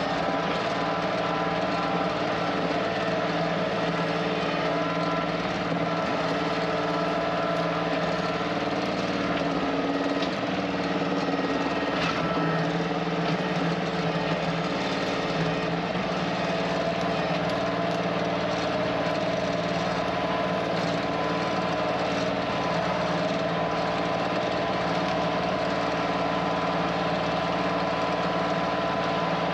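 Kioti CK2610 compact tractor's diesel engine running at a steady speed.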